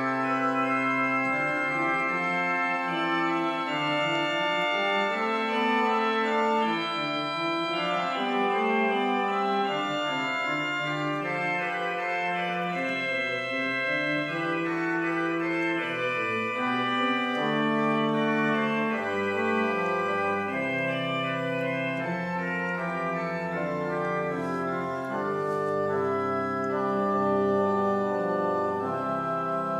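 Organ music: sustained chords held and changing every second or two, with no decay between them.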